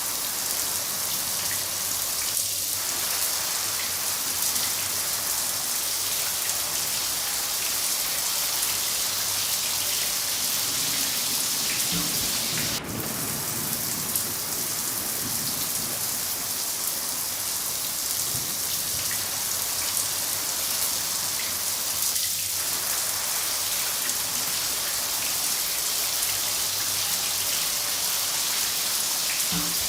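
Steady rain pouring down, an even hiss of many drops striking a surface. A low rumble swells briefly near the middle.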